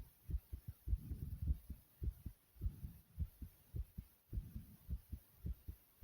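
Heartbeat: a steady run of low, dull thumps several times a second, with a soft low rumble between beats.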